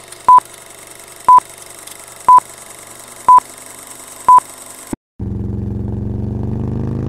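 Film-leader countdown effect: a short high beep once a second, five times, over a steady film hiss. About five seconds in the hiss cuts off and music starts, with low held notes.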